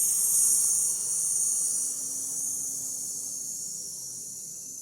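A woman's long "sss" hiss as she pushes a deep breath out through her teeth. It starts abruptly and loud, then slowly fades over about five seconds before stopping.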